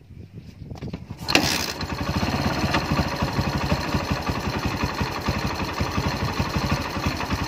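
Kawasaki Barako 175 motorcycle kick-started: its single-cylinder engine catches on one kick a little over a second in, then idles with a steady, even firing beat. The easy start is the sign that its hard starting has been cured by a tune-up.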